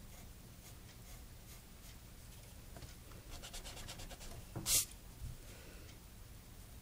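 Pencil scratching on sketchbook paper: light strokes, then a quick run of rapid back-and-forth strokes about three seconds in, ending in one louder scratch.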